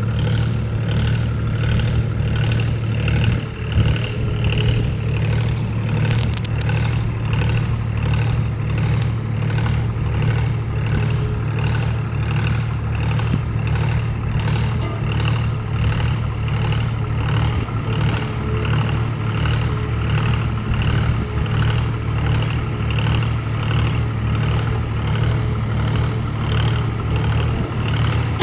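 Diesel engine of a SANY long-boom excavator running steadily with a low hum and a regular pulsing beat, with a brief knock about four seconds in.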